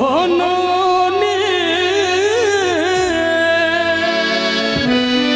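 A male singer's wordless, drawn-out melodic line with wavering ornaments, over steady held harmonium chords; the voice drops out about three seconds in, leaving the harmonium sounding.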